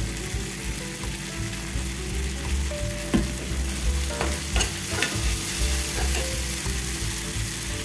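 Chopped tomato and onion sizzling in coconut oil in a small frying pan, stirred with a steel spoon that clicks and scrapes against the pan a few times around the middle.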